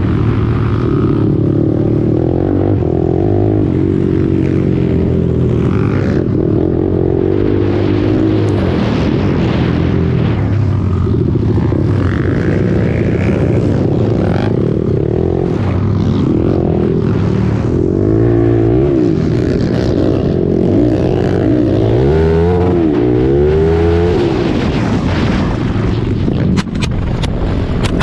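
Racing quad's engine close to an onboard camera, revving up and down in repeated rising and falling sweeps on a dirt flat track. Near the end the engine note drops away and sharp knocks come as the quad crashes.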